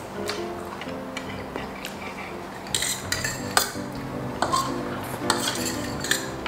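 Metal forks and spoons clinking and scraping on a stainless steel serving tray, with a run of sharp clinks from about halfway in. Soft background music plays underneath.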